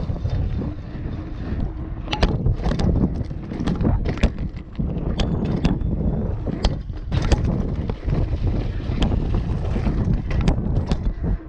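Mountain bike ridden downhill over rough ground: wind buffets the microphone over a low rumble, with many sharp knocks and rattles from the bike throughout.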